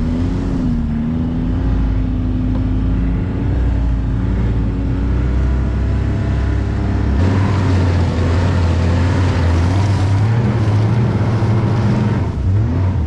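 Ski-Doo Skandic snowmobile running under way through deep snow, towing a loaded sled. The engine note is steady at first, then about seven seconds in it drops lower and turns louder and rougher.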